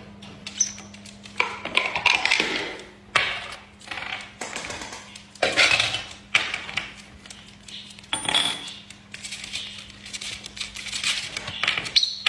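Small hard objects, bottle caps and lids, clattering and clinking irregularly on a tabletop as a masked lovebird plays with them, with a few short high chirps.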